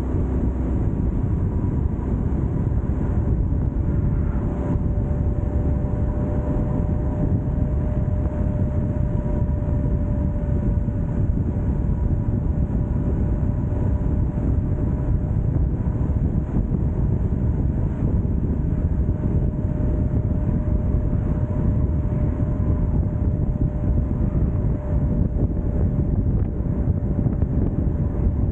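Steady rumble of travel along a highway at constant speed, with wind on the microphone and a faint steady hum running through it.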